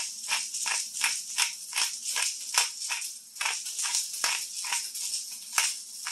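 Black pepper being dispensed from a hand-held container over the pot in quick, repeated strokes, a dry rattle about three times a second.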